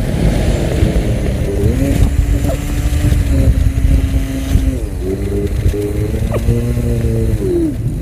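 Honda scooter engine running while riding, its note rising as it picks up speed, dipping and climbing again about five seconds in, and dropping near the end as it slows. Heavy wind rumble on the camera microphone runs underneath.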